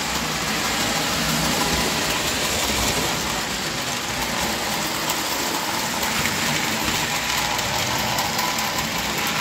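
O-gauge model electric trains running on three-rail tubular track: a steady whirring rumble of motors and metal wheels on rail, unchanging in level.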